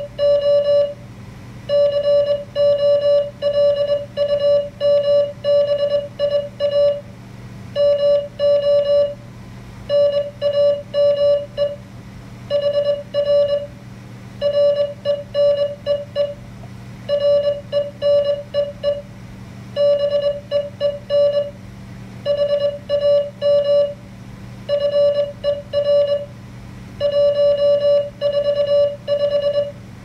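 Morse code sidetone from an MFJ-493 memory keyer's QSO simulator: one steady beep keyed on and off in dots and dashes at an even speed, with short pauses between words, over a low steady hum. It spells out the simulated station's reply: 'QTH is Columbia MO, name here Renee, been ham for 145'.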